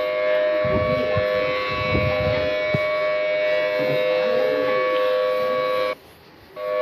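Outdoor warning siren sounding a steady two-note chord at constant pitch. It breaks off abruptly about six seconds in and comes back just before the end.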